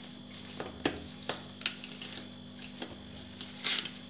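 Hand mixing grated boiled potato with spices on a stainless steel plate: soft squishing with irregular light taps and clicks, the loudest near the end, over a faint steady hum.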